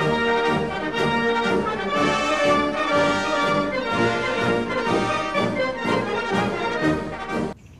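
Brass band music, trombones and trumpets playing sustained notes; it cuts off abruptly near the end.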